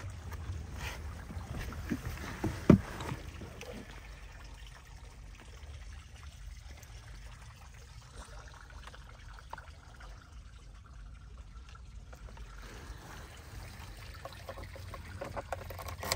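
Handling noise from a handheld phone being moved about: a low rumble and rustling, with one sharp click about three seconds in and a few lighter clicks later.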